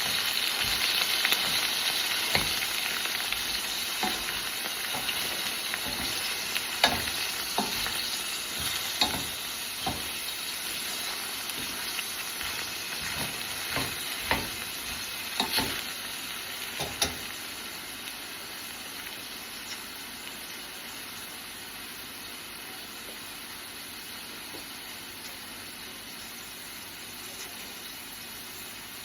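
Food sizzling in a frying pan, with a utensil stirring and knocking against the pan a dozen or so times in the first half. The sizzle slowly dies down.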